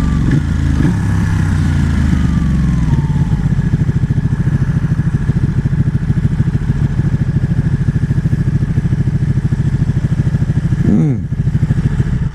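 Ducati 1199 Panigale's L-twin engine heard from the rider's seat on the move: a steady note for the first few seconds, then a lower, fast-pulsing beat from about three seconds in.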